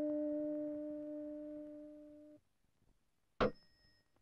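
Tuning fork ringing with a steady low tone, fading slowly, then cut off suddenly about two and a half seconds in. Near the end comes a short sharp knock with a brief high ring.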